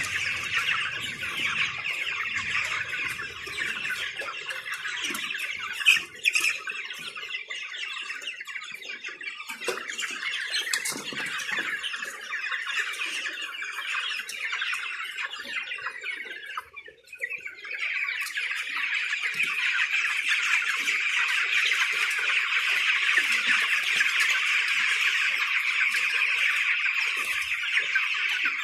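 A flock of young chicks peeping and chirping continuously in a dense chorus. There is a short sharp knock about six seconds in, and the chorus briefly drops away about seventeen seconds in.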